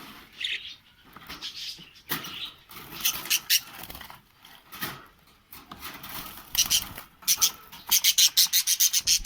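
Budgerigars chirping and chattering: scattered short high chirps, turning into a fast, louder run of chirps near the end.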